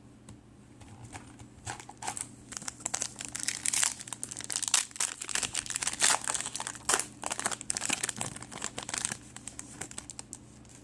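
Foil trading-card pack wrapper crinkling and tearing as it is handled and opened: a run of sharp, irregular crackles and rustles.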